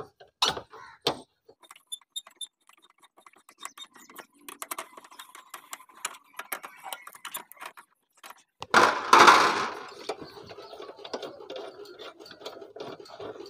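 Metal clicks and ticks of a 12 mm T-handle spanner turning the bolts of a Honda CD-70's rear grab rail, with a louder noise lasting about a second some nine seconds in.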